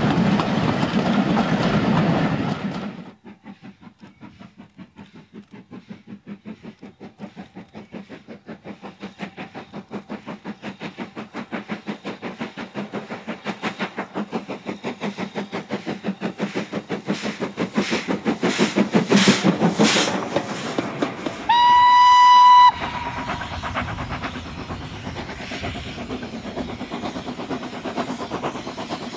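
Steam train: coaches rushing past at first. Then a steam locomotive working with an even rhythm of exhaust beats that grows louder as it approaches, and a single whistle blast of about a second. Near the end there is a quieter, steady train sound.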